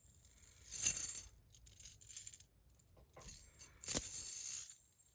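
Titanium fidget spinner being worked by hand: two sharp metallic clicks, about a second in and about four seconds in, each followed by a short bright rattle, with lighter clicks in between. A faint high-pitched ring lingers after the second click.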